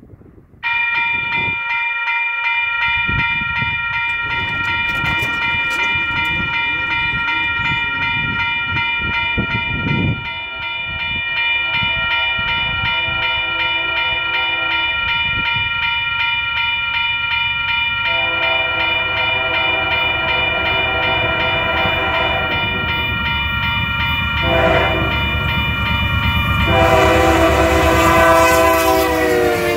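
A grade-crossing warning bell starts about half a second in and rings steadily. An approaching Union Pacific freight locomotive sounds its horn in long and short blasts: a long one, a short one, then a long one that drops in pitch as the locomotive reaches the crossing. Engine and wheel rumble build up under the horn.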